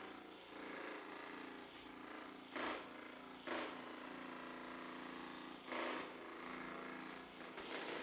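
Handheld percussion massage gun running against the muscles of the upper back, a steady buzzing motor hum with about four brief louder surges.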